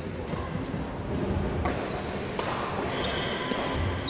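Badminton rackets striking a shuttlecock: two sharp hits about two-thirds of a second apart near the middle. Court shoes squeak high on the wooden hall floor in between.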